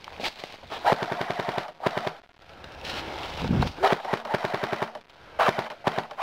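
Dboys SCAR-L airsoft electric gun firing about five short full-auto bursts, each a fast, even run of mechanical clicks. A brief low rumble comes a little past three seconds.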